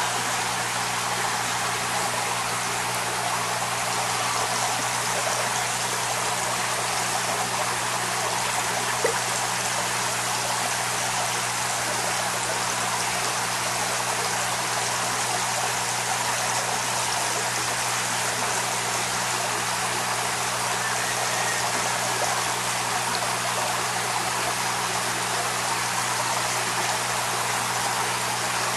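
Steady rush of running water, unchanging throughout, with a low steady hum underneath.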